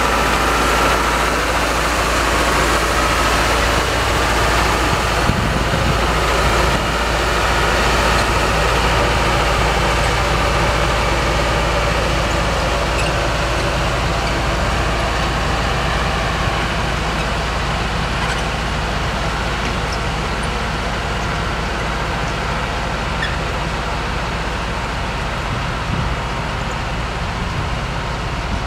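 Engine noise of self-propelled railway track maintenance machines running along the rails, steady and slowly fading as they move away.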